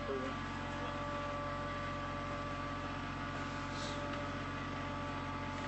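Steady machine hum with several constant tones, from equipment running at the pipe-lining job site.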